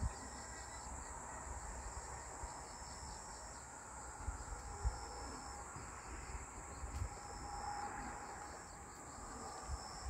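Insects chirping in a steady chorus: a continuous high trill, with a pulsing chirp just below it. A few soft low thumps come and go.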